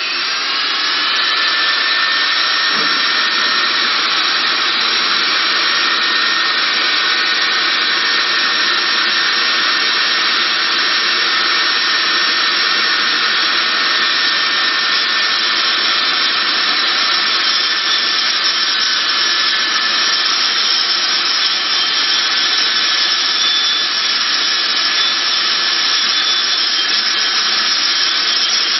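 Metal lathe machining a layered magnetic ring: a steady high whine over a loud hiss, its pitch settling within the first second as the lathe comes up to speed.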